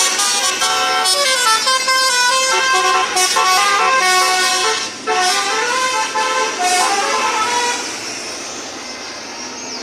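Basuri musical vehicle horn playing a tune: a run of held notes stepping up and down in pitch. There is a short break about five seconds in, and it gets quieter over the last two seconds.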